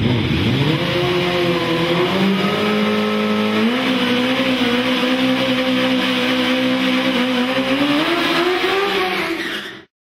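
Sportbike engine held at high revs during a burnout, over the hiss and squeal of the spinning rear tyre. The engine's pitch climbs in steps and it cuts off suddenly near the end.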